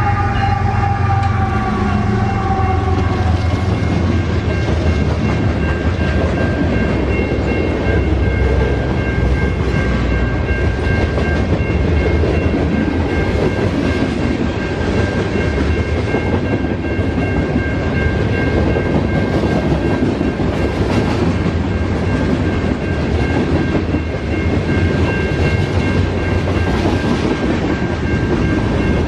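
A long freight train's cars rolling past at speed, with a steady rumble and clatter of steel wheels on rail. Over the first few seconds the sound of the departing GE locomotives falls in pitch as they pull away. A grade-crossing warning bell rings throughout as a steady high tone.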